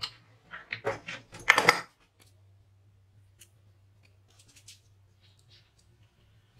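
A quick run of sharp clicks and knocks from workpieces being handled on a workbench, loudest about a second and a half in. A few faint taps follow.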